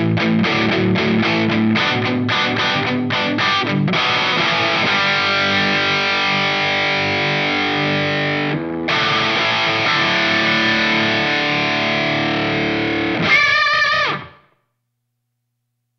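Electric guitar played through a Line 6 POD Go amp modeller on a crunch distortion preset. Short chopped chords give way to ringing, sustained chords with a brief break around the middle. A last chord wavers with vibrato and dies away near the end.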